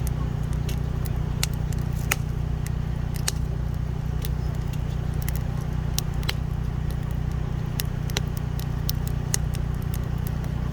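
Campfire wood crackling, with sharp, irregular pops several times a second over a steady low rumble.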